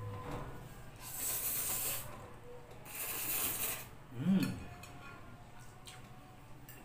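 A person slurping a forkful of spicy instant noodles in two hissing pulls of about a second each. A brief hum comes from the eater about four seconds in, then faint clicks of a fork against a ceramic bowl.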